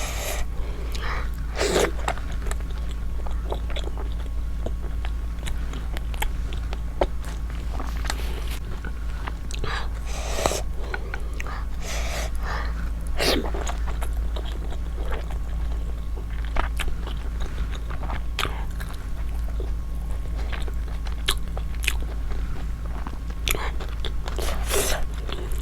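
A person chewing food close to the microphone, with irregular mouth clicks and smacks, over a steady low electrical hum.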